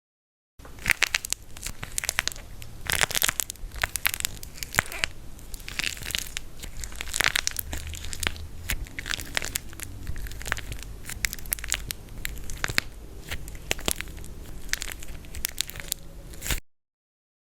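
Dry plaster clay being crushed and cracked apart: a dense, irregular run of sharp crackles and crunches that starts suddenly just after the beginning and cuts off abruptly about a second before the end.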